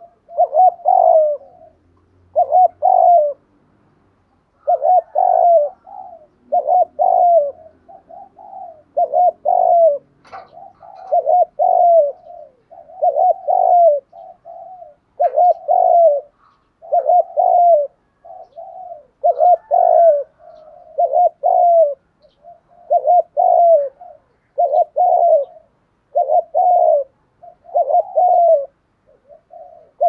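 Spotted dove (cu gáy) cooing over and over, its short multi-note coo phrase repeated evenly about every two seconds. This is the male's cooing song, used here as a decoy call to draw wild doves.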